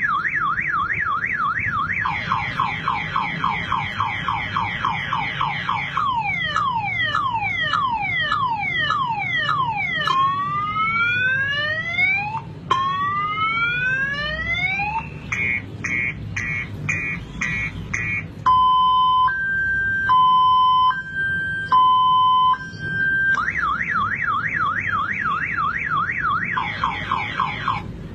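Electronic multi-tone alarm siren of the car-alarm kind, stepping through its tones every few seconds: a fast warble, a slower chirping whoop, falling sweeps, rising sweeps, rapid beeps, a two-tone high-low, then the fast warble again.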